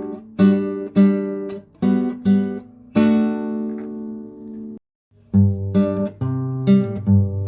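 Acoustic guitar music: strummed chords, one chord left ringing for a couple of seconds, then a brief gap about five seconds in before the strumming starts again with heavier bass notes.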